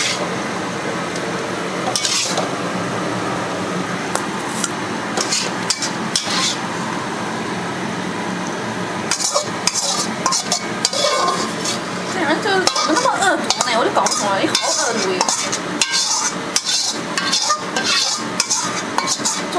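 Metal spatula stirring red-braised pork and potatoes in a sizzling wok. From about nine seconds in come rapid scraping and clattering strokes as the food is scraped out of the tilted wok into a steel pot.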